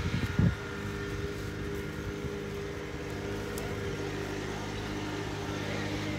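A vehicle engine idling steadily, with a few low bumps on the microphone in the first half second.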